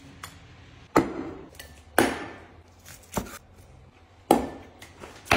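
Meat cleaver striking a wooden board in about five sharp chops, roughly one a second, each followed by a ringing tail.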